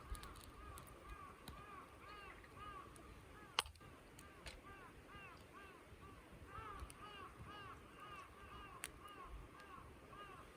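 Faint, continual short rising-and-falling calls from a flock of birds, several overlapping at a time, with a single sharp snap about three and a half seconds in.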